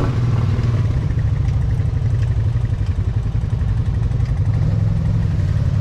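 ATV engine running steadily, its pitch rising slightly about five seconds in.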